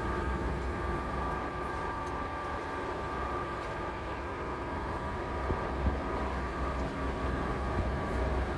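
Steady low rumble of large machinery running, with a constant whine on top.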